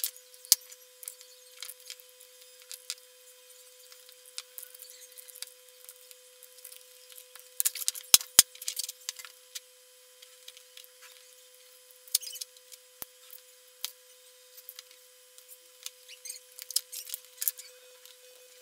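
Scattered small clicks and taps of hands, a soldering iron and a circuit board being worked while a capacitor is soldered on, with a cluster of sharper snaps about eight seconds in. A faint steady hum sits underneath.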